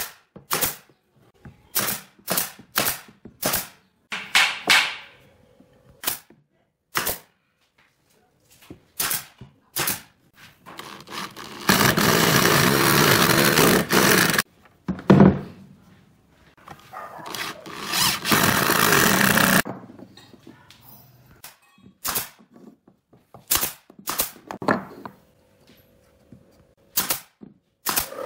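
Pneumatic F50 brad nailer firing single shots into pine, a sharp click with each nail. Around the middle, an electric drill runs twice for about three seconds each, driving screws, with a single knock between the runs. After that the nailer fires a few more shots.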